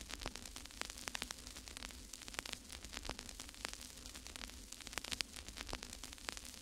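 Faint static crackle: irregular clicks and pops over a low hiss, with a steady mains-like hum underneath.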